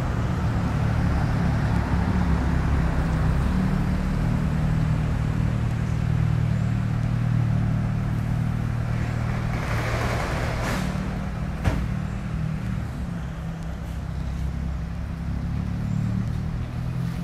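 Steady low drone of a motor vehicle running, with a brief swell of noise about ten seconds in and a sharp click shortly after.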